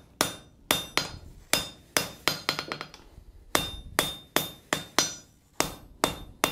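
Hand hammer striking a glowing stack-welded iron bar held on the anvil: a steady run of forging blows, about two to three a second with a short pause near the middle, each blow with a brief metallic ring.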